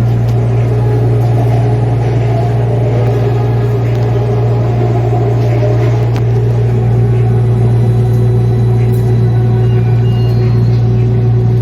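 A vehicle running with a steady low hum and rumble.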